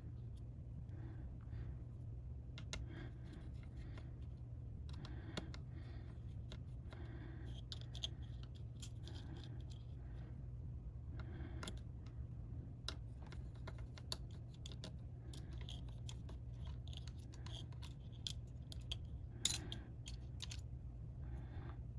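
Light, scattered clicks and taps of small repair tools against a laptop's internal parts and screws, one sharper click near the end, over a steady low hum.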